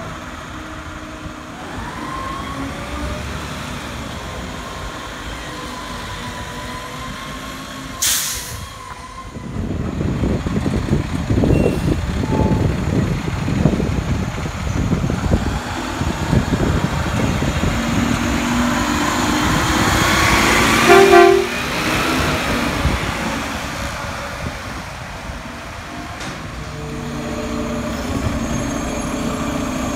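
Diesel engines of Mack automated side-loading garbage trucks: one truck running and pulling away while another drives up and idles. A short hiss of air comes about eight seconds in, and a brief loud tone about twenty-one seconds in.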